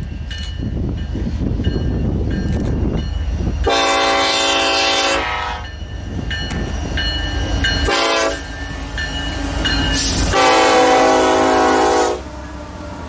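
Diesel locomotives of a loaded BNSF coal train approaching and passing close by, their engines giving a steady low rumble. The multi-note air horn sounds three times: a long blast, a short one, then another long one that cuts off near the end as the locomotives go by.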